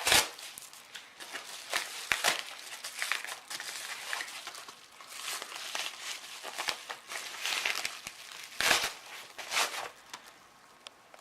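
Packaging being torn open and crinkled as a mailed parcel is unwrapped, in irregular rustling bursts with a louder tear at the start and another near the end.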